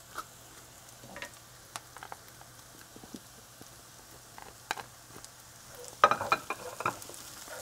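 Diced onion and garlic sizzling softly in a frying pan while a wooden spoon stirs and scrapes, with scattered clicks and knocks and a quick run of louder knocks about six seconds in.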